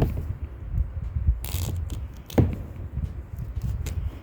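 Duct tape being pulled off the roll and pressed onto a plastic dog-cage tray: rubbing and handling noise, with a short tearing rip about a second and a half in and a sharp tap a little later.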